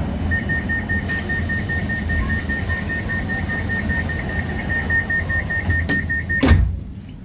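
Tram door-closing warning: rapid, steady high beeping, about five beeps a second, for about six seconds, over the low hum of the tram. It ends with a loud thud as the doors shut, after which it is quieter.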